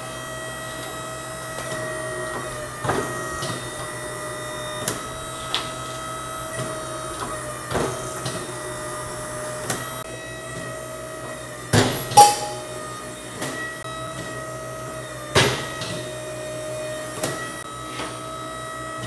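An ironworker's motor runs with a steady hum while its flat-bar shear cuts steel bar into short pieces. Each cut gives a sharp clack, one every couple of seconds, and the loudest is a double clack about twelve seconds in.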